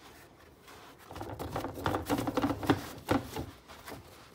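Paper towels being pulled off a roll on a wooden holder: a rapid crackling rustle that starts about a second in and lasts about two seconds, with one sharp click near its end.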